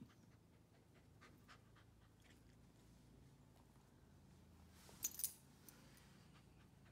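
Faint sounds of a Pembroke Welsh corgi puppy playing with its toys: light clicks and rustles, with a brief jingle of metal collar tags about five seconds in.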